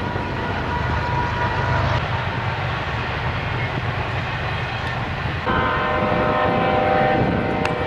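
A horn sounding a steady chord of several tones, starting sharply about five and a half seconds in and held to the end, over a steady low rumble.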